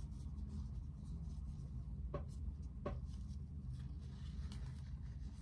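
Faint rubbing and rustling of hands handling a doll with a stitched cloth body, with two light clicks a little over two seconds in, over a low steady room hum.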